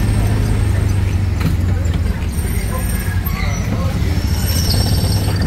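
People talking over a steady low hum.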